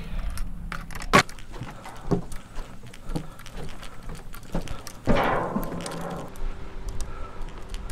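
Kayak and fishing gear being handled: scattered knocks and clunks, one sharp knock about a second in, and a short rushing, scraping noise around five seconds in.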